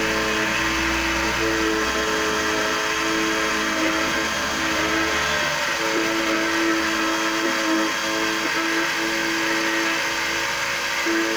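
Electric key-cutting machine running, its vertical cutter milling a key blank to copy a key: a steady whine that drops out briefly a few times, over a grinding hiss.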